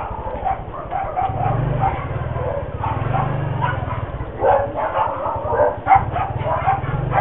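A dog barking several times in the second half, the loudest bark just before the end, over the steady low running of a motorcycle engine moving at walking pace.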